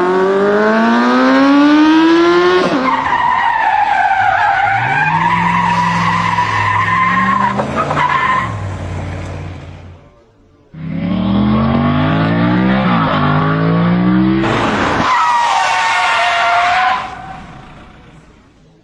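A car engine revving hard and climbing through the gears, with a long tyre squeal after each run. This happens twice, with a short gap between the two runs.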